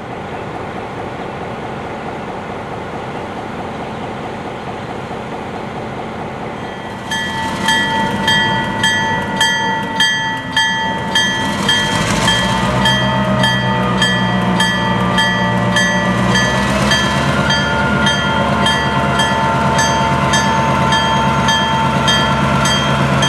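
EMD road-switcher diesel locomotive running steadily. About seven seconds in, its bell starts ringing, two or three strikes a second, and a few seconds later the engine grows louder as the locomotive gets under way.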